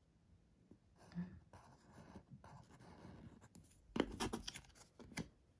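Red colored pencil writing on paper on a clipboard: faint scratchy strokes as letters are drawn, then a few sharper knocks about four seconds in as the pencil and hand come against the clipboard.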